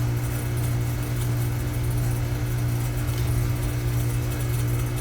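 Central air conditioner's outdoor condensing unit running: a steady low hum from the compressor and fan.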